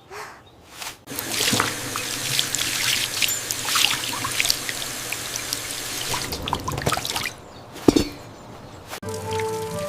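Water pouring and trickling with small splashes and drips, from about a second in until about seven seconds. A single sharp knock comes near eight seconds, and music begins near the end.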